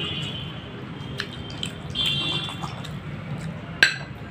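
A glass bowl set down on a ceramic plate with one sharp clink near the end, after a few small clicks of glassware and dishes being handled.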